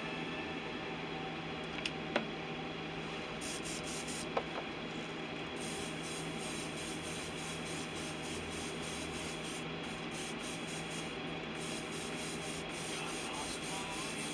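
Airbrush spraying paint, a steady hiss of air and paint, laying down a base coat on a crankbait. A few light clicks in the first few seconds.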